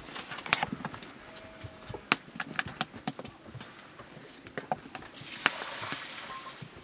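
Wood fire crackling under a cooking pot, with irregular sharp pops and knocks as the firewood is tended. A soft hiss rises briefly near the end.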